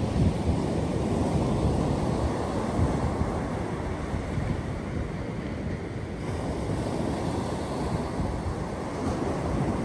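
Ocean surf: small waves breaking and washing up a sandy beach in a steady rush that eases a little and swells again about six seconds in.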